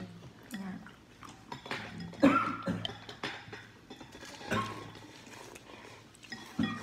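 Spoons and chopsticks clinking and tapping against porcelain soup bowls, with noodles being slurped from a bowl of noodle soup. Scattered, fairly quiet clicks, with a few louder ones.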